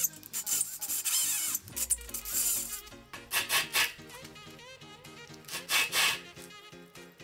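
Hitachi 18V cordless drill boring into square steel tubing in several short bursts, with a grinding, rasping bite of the bit in the metal. Background music plays underneath.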